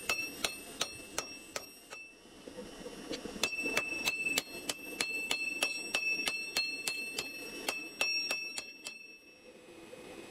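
Hand hammer striking a red-hot steel axe head on a small round steel anvil: a steady run of ringing metallic blows, about three a second. The blows pause for about a second and a half after two seconds, then continue until near the end.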